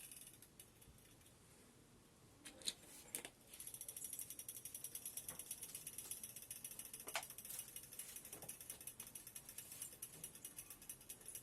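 Mustard oil heating in an electric kettle, crackling faintly: a few separate clicks, then from about three and a half seconds in a fast, steady run of small pops and ticks.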